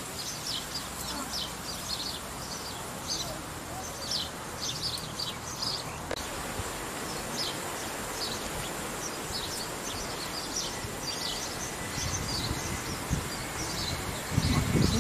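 Small birds chirping repeatedly in riverside bushes, many short high chirps over a light outdoor background, with low buffeting on the microphone near the end.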